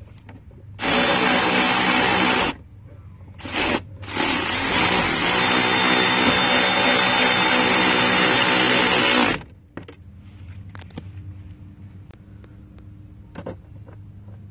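Milwaukee M12 FUEL brushless 3/8 in. cordless ratchet running on a license-plate screw: a burst of under two seconds about a second in, a short blip, then a longer run of about five seconds, a steady motor whine. A few light clicks follow once it stops.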